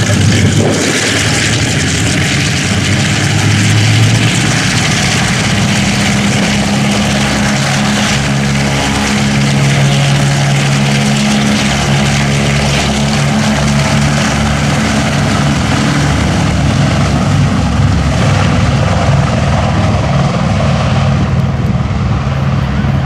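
A B-29 Superfortress's four Wright R-3350 radial engines running with propellers turning as the bomber taxis past and away down the runway: a loud, steady propeller drone whose higher sound thins out near the end.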